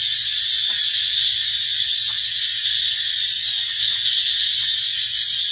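Steady, high-pitched buzzing of an insect chorus, unbroken throughout, with a few faint soft clicks.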